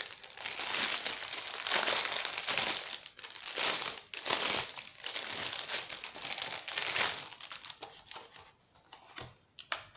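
Clear plastic packaging bag crinkling in irregular bursts as it is opened and a paper border punch on its backing card is pulled out. The crinkling dies down about three-quarters of the way through, leaving a few light clicks of handling.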